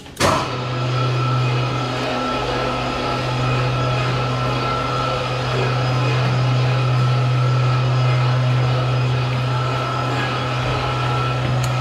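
Freight lift machinery starting with a click just after its start button is pressed, then running with a steady low electric hum and a thin, steady whine above it.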